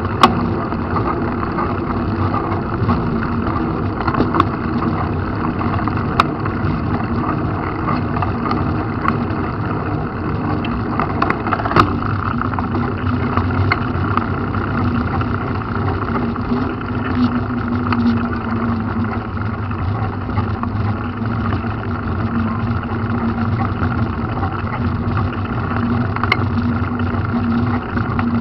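Steady running noise of a road vehicle heard from inside the cabin: a constant low engine hum over road noise, with a few brief clicks and rattles.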